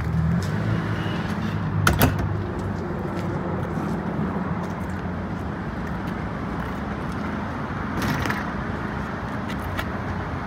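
Rear ramp door of an enclosed cargo trailer being unlatched and lowered: a sharp metallic click about two seconds in, then a short rattling clatter about eight seconds in as the ramp comes down. A steady low rumble runs underneath.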